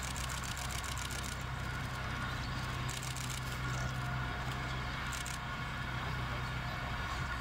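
Steady low rumble of distant traffic.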